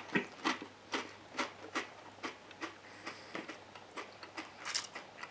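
A ridged potato chip being crunched while chewed with the mouth closed: a run of crisp crunches about two a second that grow fainter, with one sharper crunch near the end.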